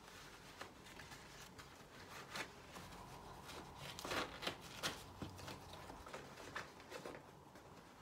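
Straps and webbing of a Mamaruga Zebulo buckle carrier being handled: faint rustling with scattered light clicks and scrapes, a few louder ones about halfway through.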